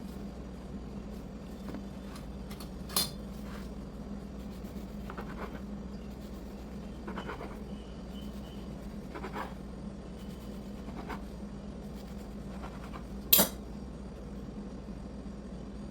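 Kitchen utensils and bakeware clinking and clattering now and then over a steady low hum, with two sharper, louder clinks about three seconds in and near the end.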